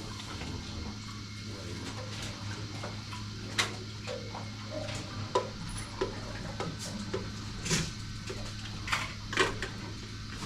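Scattered sharp clicks and taps, about six of them, spread through the span, over a steady low hum.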